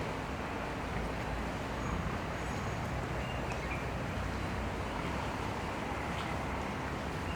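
Steady harbourside ambience: a low engine rumble with a wash of wind and water noise, and a few faint high chirps.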